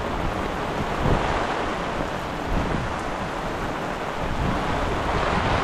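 Storm runoff rushing as it spills over a sediment-basin berm and starts down a paved road: a steady, even rush of water, with wind buffeting the microphone.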